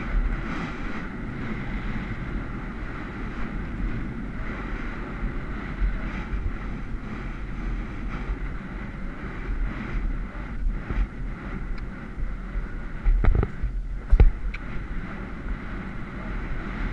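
Wind rushing over a helmet camera's microphone as a horse canters across grass on a cross-country course, steady throughout, with two loud thumps close together about three-quarters of the way through.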